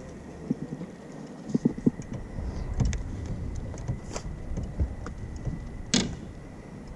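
Knocks and clunks of gear being handled on a fishing boat's deck, over a low rumble of wind and water, with two sharp clicks about four and six seconds in.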